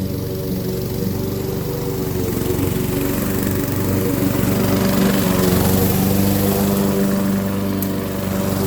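Honda HRX217 walk-behind mower's single-cylinder four-stroke engine running steadily under load while mulching tall, thick grass, with the cutting noise growing louder for a few seconds in the middle.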